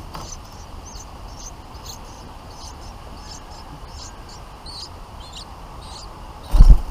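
Bulbuls chirping at the nest: short, high chirps repeating about twice a second. A loud low thump near the end.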